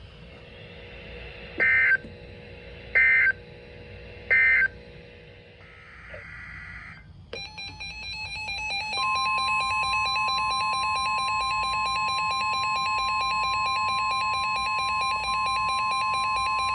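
Emergency Alert System end-of-message data bursts: three short digital warbles about a second and a half apart, closing one warning. From about seven seconds a louder steady electronic tone signal starts, and about two seconds later a single pure, high, steady tone joins it and holds to the end: the long alert tone that opens the next warning.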